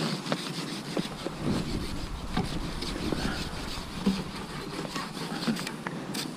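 Rain falling in a steady hiss, with many sharp taps of drops landing close by, and wind buffeting the microphone from about a second in.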